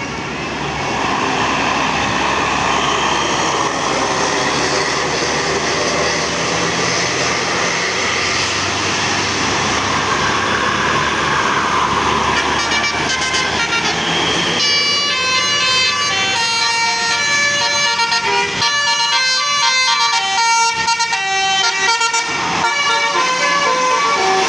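Vehicle noise, then from about halfway through a multi-tone basuri 'telolet' bus horn plays a quick tune of short stepping notes.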